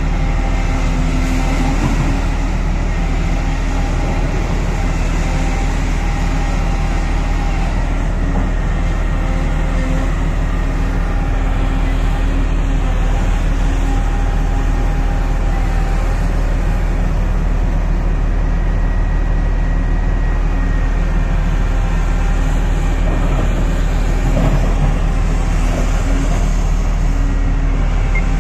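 Volvo EC950E crawler excavator's diesel engine and hydraulics working steadily as it digs into the rock face, with a thin whine that comes and goes over a constant low engine drone.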